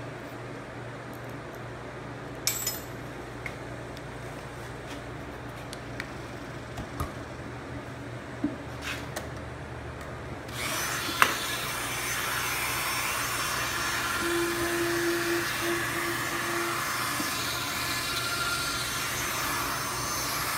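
Dremel rotary tool with an ABS plastic stick loaded for friction-stir welding switched on about halfway through, then running steadily at high speed. Before that come a few sharp clicks and knocks of the tool being handled, over a low hum.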